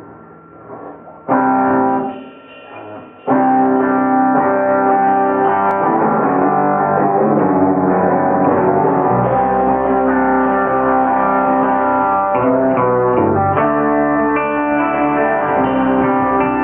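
A rock band plays live: electric guitar with bass guitar and drums. After a brief lull there is a single guitar chord about a second in, and the full band comes in about three seconds in. A deeper bass line fills in around nine seconds in.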